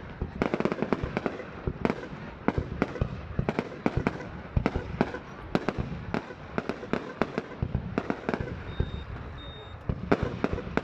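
Fireworks going off in a dense, irregular string of sharp bangs and crackles, several a second without a pause.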